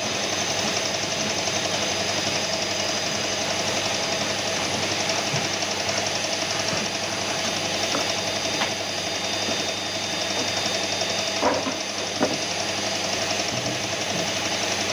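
Piston air compressor for spray painting running steadily, with a few light clicks and knocks of workshop handling about halfway through and later.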